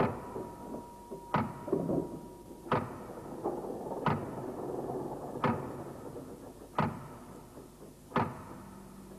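Percussive soundtrack: a sharp knock repeating at an even pace, about one every 1.4 seconds, seven in all, with a faint held tone and low hum between the knocks.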